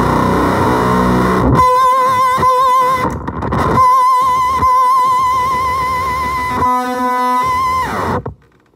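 Electric guitar played through a fuzz pedal: a dense, fuzzy chord for about a second and a half, then long held high notes with wide vibrato. A lower held note comes near the end before the sound cuts off about eight seconds in.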